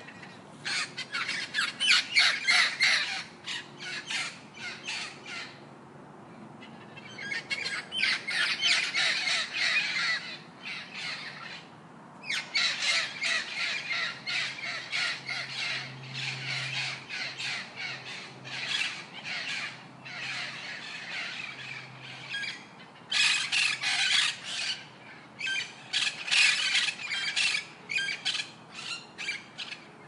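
Parrots squawking and screeching in harsh, rapid calls that come in bouts of a few seconds with short lulls between them.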